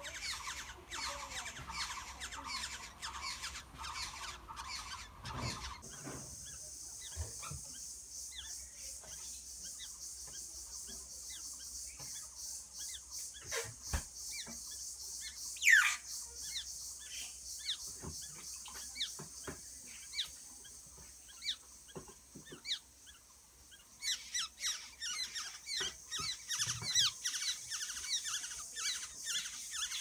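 Black-hooded oriole nestlings begging: rapid, high-pitched repeated chirps for the first few seconds and again over the last several seconds as a parent arrives to feed them. In between there are only scattered short chirps over a steady high hiss, and one louder sweeping call near the middle.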